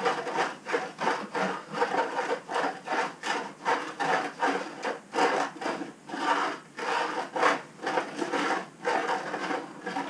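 Cloth rubbing back and forth on a car's painted body panel as it is wiped down before vinyl wrapping, in quick repeated strokes about three a second.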